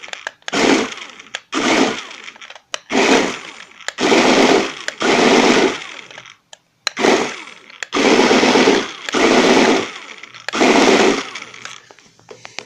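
Small electric drive motor of a Flytec amphibious RC stunt car spinning up in about nine short bursts of a second or less, a harsh mechanical whir. It is being test-run after repair on a motor the owner considers faulty.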